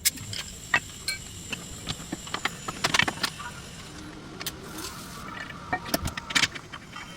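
Irregular metallic clinks and knocks of hand tools and metal parts being handled, with a cluster of sharper knocks about three seconds in and another about six seconds in.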